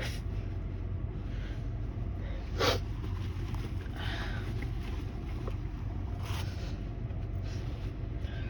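A person with a head cold lets out one short, harsh stifled sneeze about two and a half seconds in, with a few fainter sniffs or breaths around it. A steady low hum runs underneath.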